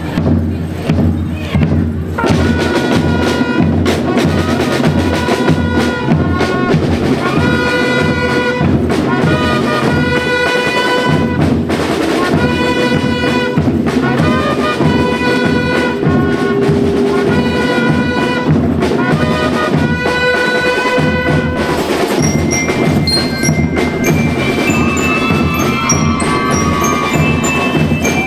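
School rhythm band playing: drums keep a steady beat under a melody on pitched instruments. About three-quarters of the way in the drums drop back and the tune passes to high, ringing mallet percussion such as bell lyres.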